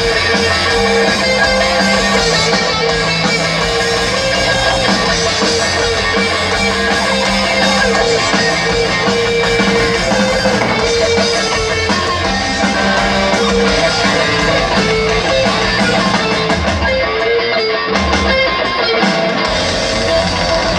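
Rock band playing live with no singing: electric guitar over bass and drums. The bass drops away briefly near the end.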